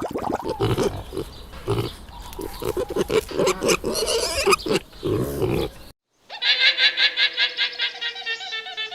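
Pig grunting in rapid, irregular low grunts for about six seconds. After a brief break, a long quavering bleat begins.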